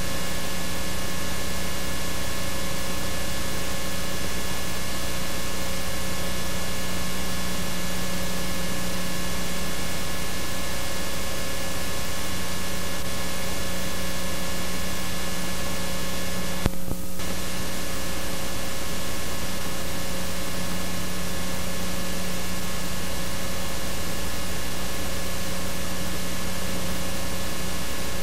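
Steady hiss and electrical hum with several steady tones and no other sound: the noise floor of an analogue video tape with no recorded sound. About seventeen seconds in there is one brief click and dropout.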